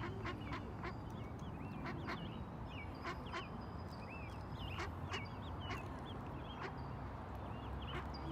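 Ducks quacking and ducklings giving many short high peeps, scattered and overlapping.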